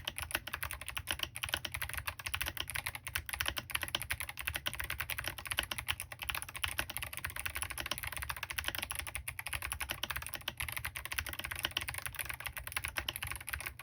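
Fast, continuous typing on a Smurve80 mechanical keyboard with Kailh Box Jade clicky switches (lubed with Krytox 205g0), SA-profile Handarbeit keycaps, a stock aluminium plate and no foam: a dense stream of sharp key clicks.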